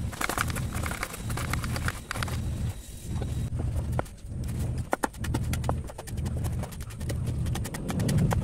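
Carrot rasped in quick repeated strokes over a plastic vegetable slicer into a plastic colander. A few seconds in, this gives way to a cleaver chopping spring onion on a wooden board in steady knocks.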